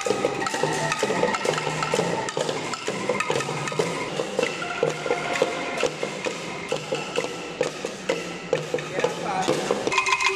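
Bamboo instrument ensemble playing a tune: sticks strike bamboo tubes in a quick, steady rhythm, giving clacks with hollow pitched notes. Near the end this changes to a fast rattle with ringing notes from shaken bamboo angklung.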